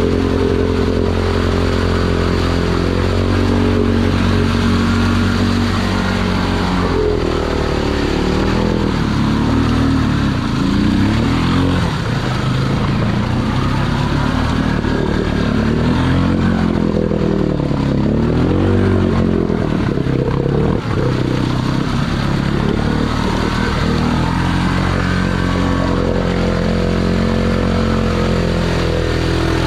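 Honda ATV engine pulling hard through deep mud. It runs steady at first, then revs up and down again and again through the middle as the tires spin and throw mud, and settles back to a steady pull near the end.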